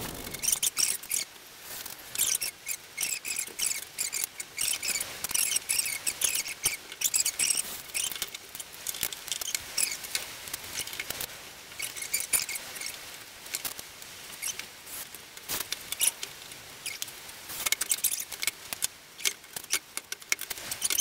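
Rapid, irregular scratchy clicks and clatter of hand tools, clamps and wood being handled at a workbench, thin and high-sounding, with no steady motor tone.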